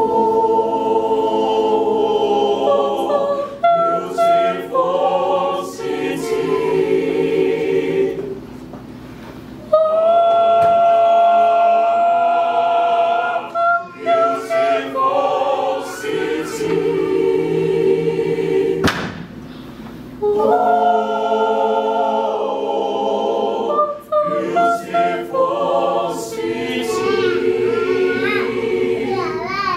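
A small mixed-voice choir singing a cappella in harmony, in long held chords, with two short breaks between phrases.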